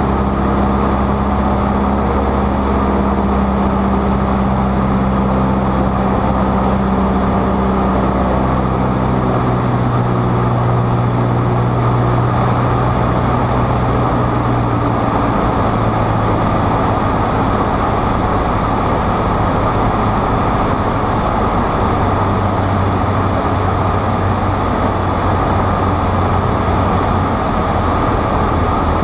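Cessna 152's four-cylinder engine and propeller droning inside the cabin under a loud rush of airflow. About a third of the way in the engine note drops to a lower steady pitch as power comes back for the descent.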